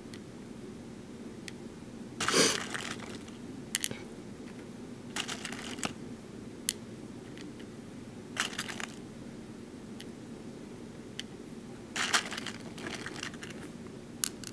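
Small BeadOs beads clicking and rattling as fingers pick them out of a plastic sorting tray and press them into a plastic pegboard template: scattered light clicks and short rattles, the loudest about two seconds in and a cluster near the end, over a low steady hum.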